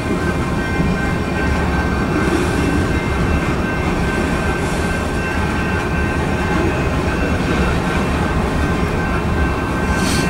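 Freight cars rolling past: a steady rumble of wheels on rail, with several steady high-pitched tones running over it.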